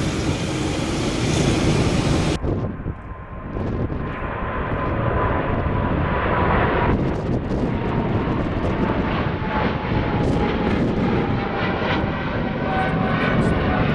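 A Boeing 787-9's jet engines running as it taxis close by. About two seconds in, after a cut, an Emirates Boeing 777-300ER's GE90 engines at climb power as it departs and passes overhead: a deep rumble with a whine that slowly falls in pitch.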